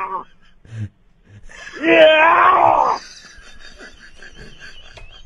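A voice lets out a long, strained "eaaah" groan about a second and a half in, lasting about a second and a half, then a faint, fast, rasping rattle.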